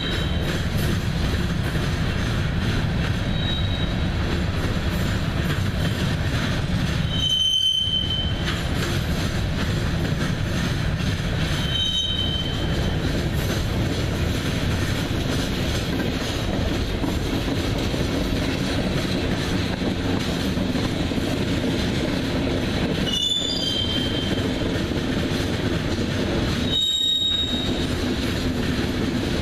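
Freight cars rolling past on steel wheels: a steady rumble of wheels on rail, broken by several brief high wheel squeals every few seconds.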